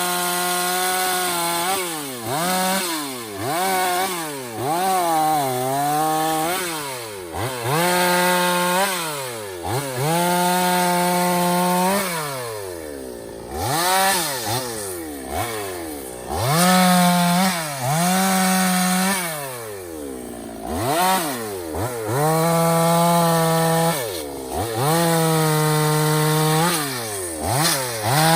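Stihl two-stroke petrol chainsaw revved again and again, its engine note climbing to full speed, holding briefly, then falling back, in surges every two seconds or so.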